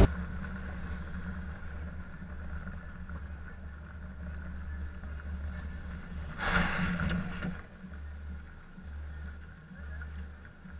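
Steady low engine and road hum of a car driving in slow city traffic, with a louder rushing swell lasting about a second just past the middle as a bus passes close alongside.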